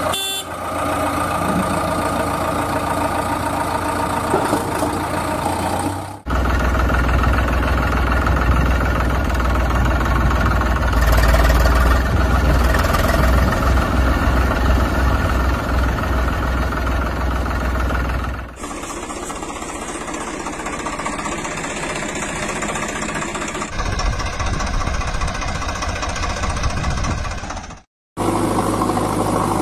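Tractor engine running and idling with a low rumble, heard in several segments joined by abrupt cuts, with a short dropout near the end.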